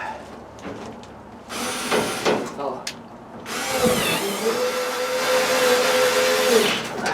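Power drill running in two bursts: a short one, then a longer run of about three seconds at a steady whine that stops near the end, while a screw is driven or a hole drilled for the new window.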